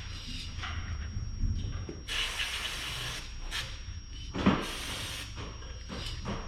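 An aerosol spray can hissing in several short bursts, the longest about a second long near the middle. A single sharp knock comes about four and a half seconds in.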